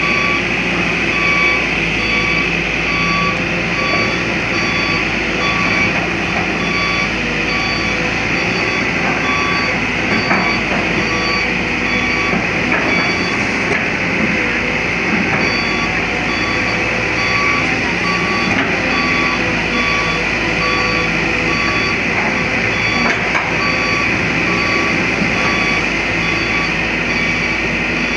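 Kobelco excavator's diesel engine running steadily while its travel alarm beeps over and over, the sign that the machine is moving on its tracks. The beeping stops for several seconds in the middle, then starts again.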